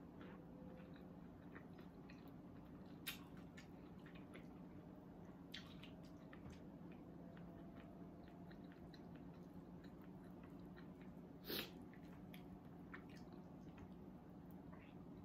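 Faint chewing and mouth sounds of a person eating fried fish and vegetables with her fingers, with scattered small clicks and a brief louder noise about eleven seconds in. A steady low hum runs underneath.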